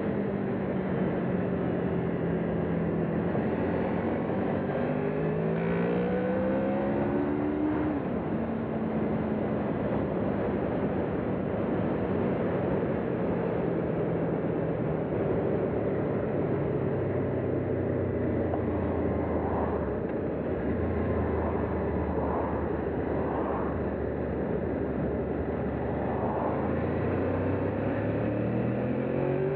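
Honda VFR800's V4 engine pulling the motorcycle along at road speed, its pitch rising and falling with the throttle and gear changes, over steady wind rush on the microphone.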